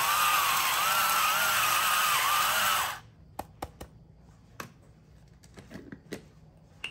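Electric pepper grinder running as it grinds white peppercorns, a steady motor noise with a wavering whine that cuts off suddenly about three seconds in. A few light clicks and taps follow.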